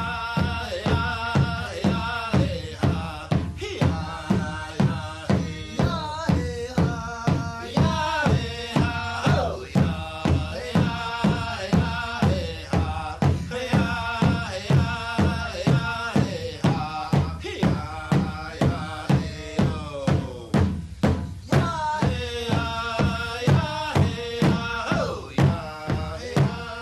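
Native American drum song: a man and a boy sing in unison over a large shared drum, beaten steadily with padded beaters at about one and a half beats a second.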